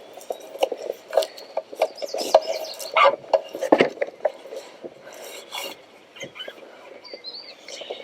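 Irregular rubbing and scraping, with light clicks and knocks scattered through it.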